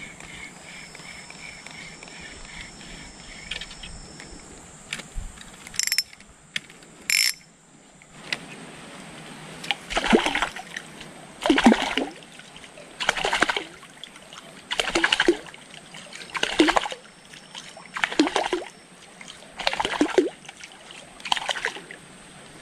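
A paddle stroking through river water, each stroke a splash about every one and a half seconds, eight strokes over the second half. Before that, a faint quick repeated chirp and two short sharp sounds.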